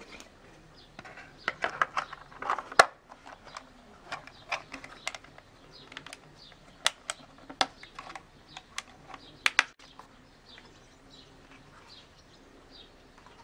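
Plastic clicks and snaps from a trail camera's battery cover and housing being fitted and handled. A dense run of clicks comes about a second and a half in, the loudest snap near three seconds, then scattered single clicks until about ten seconds in.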